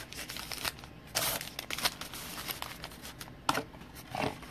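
Trading card pack wrappers crinkling and tearing as packs are handled and opened, in a string of short, irregular rustles.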